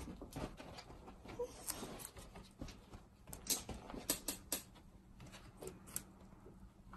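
Scattered light taps and clicks with faint rustling as a beagle puppy and a guinea pig move about a cloth-lined wooden crate. The sharpest clicks come in a quick group about halfway through.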